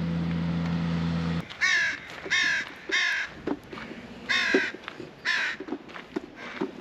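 Crows cawing: five harsh caws spread over about four seconds. Before them, a steady low motor hum cuts off abruptly about a second and a half in.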